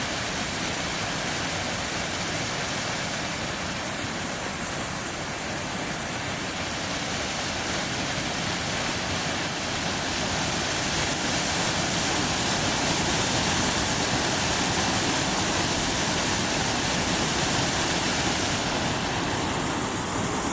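Water rushing over a mostly frozen waterfall, flowing through open patches in the ice sheet: a steady rushing hiss that grows a little louder about halfway through.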